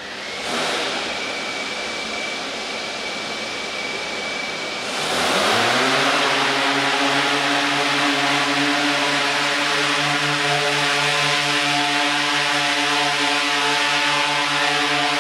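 DJI Inspire quadcopter motors and propellers spinning up. They start at idle with a thin steady whine, then about five seconds in rise in pitch and loudness as the drone lifts off, settling into a steady multi-tone hover hum.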